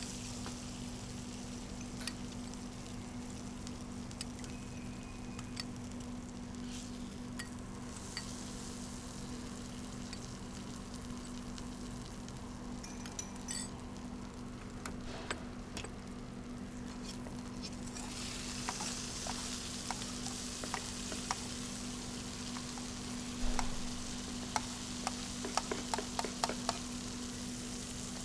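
Food frying and sizzling in a wok as it is stirred, with scattered light clicks. The sizzle grows stronger about two-thirds of the way through, there is a single thump, and quick runs of clicks follow near the end.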